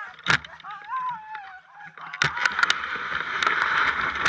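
A brief wavering high-pitched call, then about two seconds in a sharp knock as the dog sled sets off, followed by the steady hiss and clatter of the sled's runners sliding over snow.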